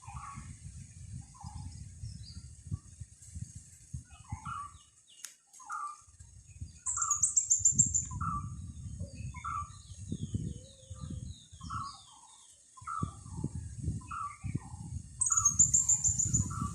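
Wind buffeting the microphone in gusts, a low rumble that comes and goes in waves and drops away twice. Over it a bird repeats a short call over and over, and a high, rapid trill sounds twice.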